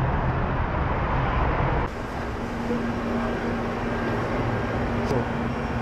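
Street traffic noise with a low rumble; about two seconds in it cuts to the steady hum of a grocery shop's cooling equipment, with one low steady tone under it.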